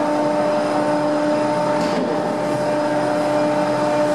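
Winch hauling a Tamar-class lifeboat up the slipway into its boathouse: a steady mechanical hum with a constant tone over a noisy rumble.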